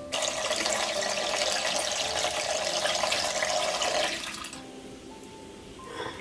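Water running from a tap into a metal bowl of grain. It goes steadily for about four seconds, then stops, and near the end there is a short swish of water as the grain is washed by hand.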